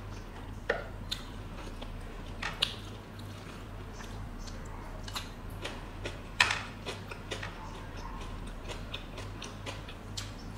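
Close-miked eating by hand: scattered crunches and wet clicks of fingers picking through crisp fried food and of biting and chewing. The sharpest come about a second, two and a half seconds and six and a half seconds in, over a low steady hum.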